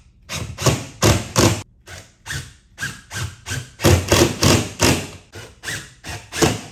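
DeWalt cordless impact driver driving self-drilling drywall anchors into sheetrock, heard as a string of sharp knocks about three a second with short pauses.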